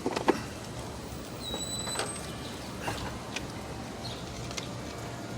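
Metal parts of a 2016 Toyota Camry automatic transmission knocking and scraping as a heavy internal part is worked out of the case. There is a sharp clunk right at the start, a short squeak about a second and a half in, then scattered lighter clicks.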